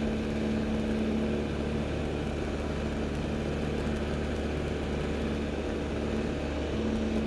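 L-13 Vivat motor glider's piston engine and propeller running steadily under takeoff power as the glider climbs out, heard inside the cockpit. Its strong steady hum weakens about two seconds in and comes back near the end.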